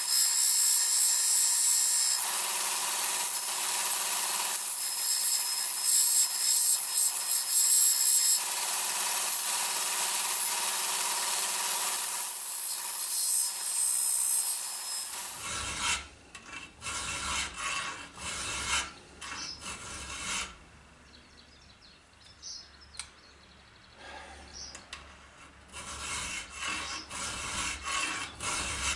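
Belt grinder sanding a small steel part: a steady loud hiss that grows and eases as the piece is pressed against the moving belt. About fifteen seconds in it stops and gives way to hand filing of the part clamped in a vise, a series of separate rasping strokes.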